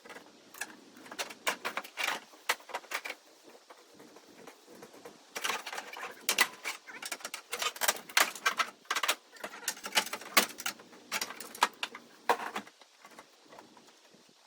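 Irregular clicking and clanking of hand tools and metal parts being worked. The clicks come in quick clusters for the first few seconds, then again more densely from about five seconds in until near the end.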